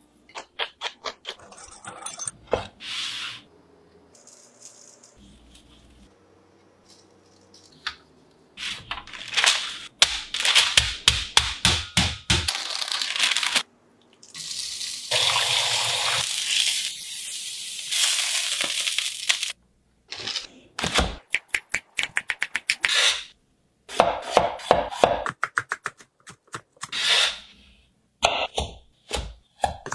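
Close-up kitchen sounds. First come quick taps and clicks of seasonings being mixed in a ceramic bowl. Then oil goes into a cast-iron skillet, and a steady sizzle runs for about five seconds. Near the end come clicks and knocks of a cucumber being handled and cut on a wooden cutting board.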